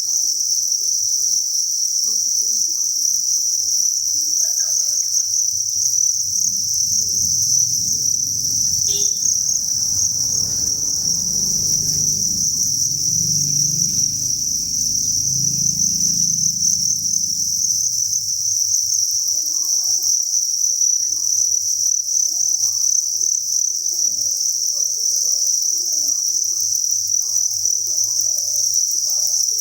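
A dense, unbroken chorus of many crickets chirping together in a cricket breeding farm, pitched high and steady. A low rumble sits underneath it from about six seconds in until about eighteen seconds.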